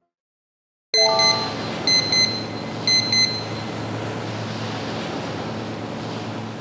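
After about a second of silence, a boat under way: a steady engine hum under rushing wind and water. Over it come high electronic beeps, three quick beeps at a time, repeated three times about a second apart.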